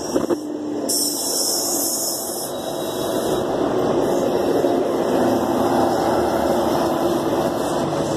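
Union Pacific SD70ACe diesel-electric locomotives passing close by in a multi-unit consist, their two-stroke V16 diesel engines running steadily, with a brief hiss about a second in.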